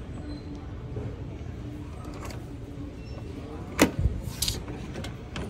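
A single sharp plastic click about four seconds in as a hand works the top of a Keurig single-serve coffee maker, followed by a brief brushing rustle, over a steady low store hum.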